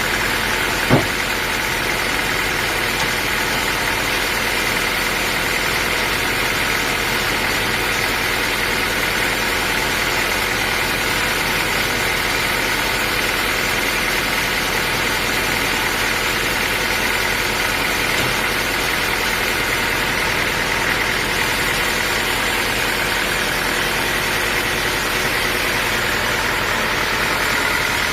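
Sawmill machinery running steadily with an even engine-like drone, with one short sharp knock about a second in.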